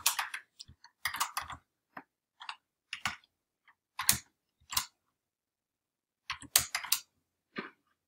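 Keys being typed on a computer keyboard in short, irregular bursts of clicks, with pauses between the bursts.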